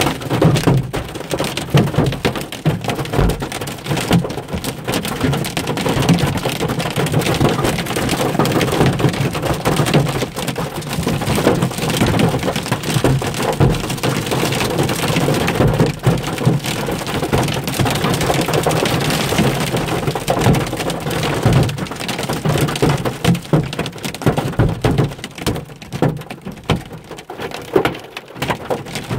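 Hail and heavy rain pelting a car's roof and windshield, heard from inside the cabin: a dense, continuous clatter of small impacts that thins out near the end.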